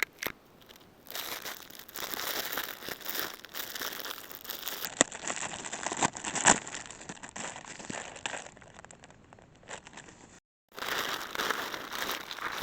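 Fast-forwarded crinkling and rustling with many sharp clicks, from material being handled while the shelter is put up. The sound cuts out abruptly twice, at edits.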